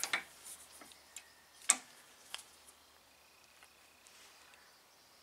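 Screwdriver working a tight, corroded screw in a 1988 Honda Gold Wing front brake caliper held loosely in a vise: a handful of sharp metallic clicks, the loudest about a second and a half in, then it goes nearly quiet.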